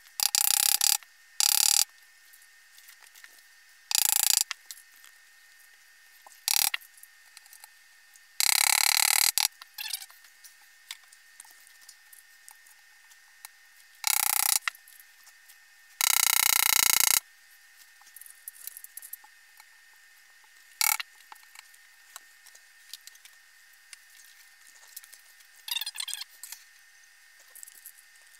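Crib parts and hand tools being handled during reassembly: about eight short, loud mechanical noises, each under about a second, with quiet gaps between. The longest two come about a third and halfway through.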